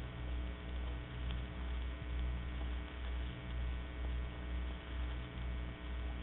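Low electrical mains hum on an old recording, swelling and fading about one and a half times a second, with faint steady tones and hiss above it.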